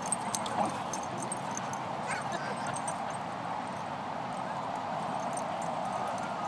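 Young pit bull–type dogs play-fighting on grass: scuffling with a few sharp clicks in the first second and a brief high dog whine about two seconds in, over a steady hiss.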